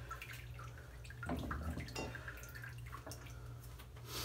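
Faint water drips and small knocks of things being handled, over a steady low hum.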